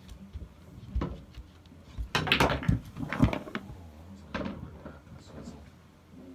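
A pool cue strikes the cue ball with a sharp click about a second in. A second later comes a loud run of clacking and knocking as the balls collide and one drops into a pocket, followed by a few scattered ball clicks.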